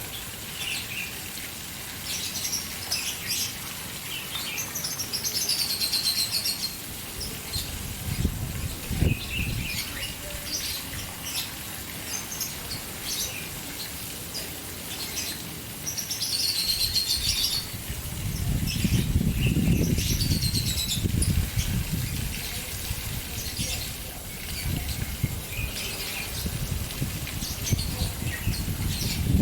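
Caged birds chirping, with repeated sweeping whistled phrases, over the steady splashing of a fountain. A low rumble swells in several times, loudest about two thirds of the way through.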